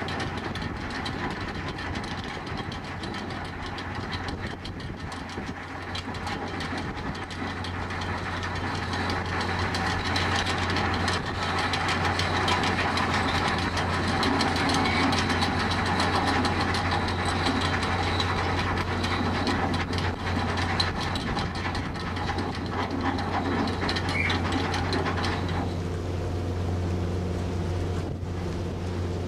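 A passenger ferry's engines and machinery running with a steady low hum while the ship manoeuvres to berth. Over the hum, a rushing churn grows louder through the middle and drops off sharply a few seconds before the end.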